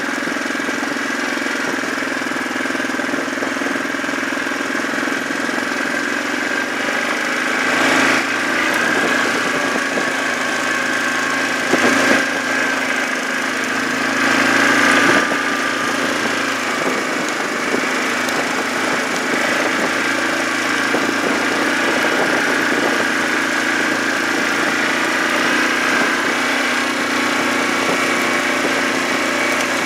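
Yamaha Kodiak 400 ATV's single-cylinder four-stroke engine running steadily under way, with a few short louder swells about a quarter and half of the way through.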